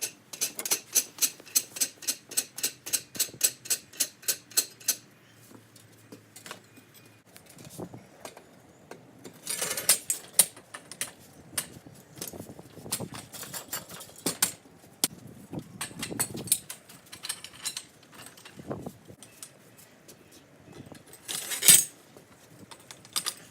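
Metal scaffolding parts being handled during the setup of a cup lock scaffold tower. It starts with a fast, even run of clicks, about four a second, for some five seconds. Irregular clanks and knocks follow, with a short louder burst near the end.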